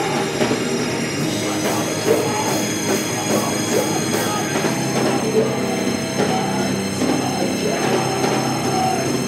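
A rock band playing loud and live: electric guitars and drums with cymbals crashing, a dense, steady wall of sound.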